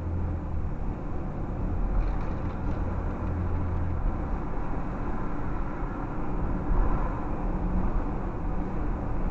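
A car driving at low speed, heard inside the cabin: steady tyre and engine hum with a low drone that fades about four seconds in.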